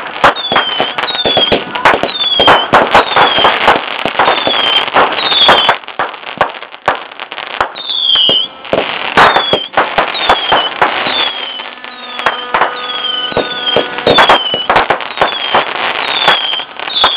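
Fireworks going off: dense, rapid crackling bangs with short high-pitched chirping whistles repeating about twice a second, easing off briefly a couple of times before picking up again.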